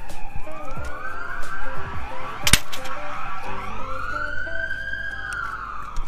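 A siren wailing, its pitch rising and falling in slow sweeps over background music, with a sharp knock about two and a half seconds in.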